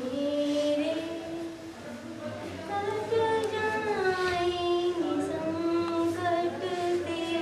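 A woman singing alone without accompaniment, in long held notes that glide between pitches.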